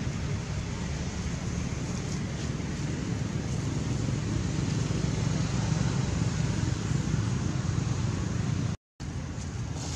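Steady low rumbling background noise that cuts out for a split second near the end.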